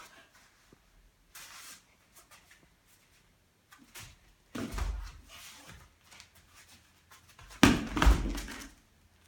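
Soft thuds and rustles of a gymnast and her rhythmic gymnastics ball on foam floor mats: a thud about halfway through, and the loudest thump near the end as she drops to the mat with the ball.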